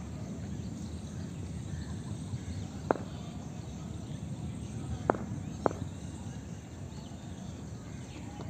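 Steady outdoor background noise with three short, sharp clicks: one about three seconds in, and two close together a little after five seconds.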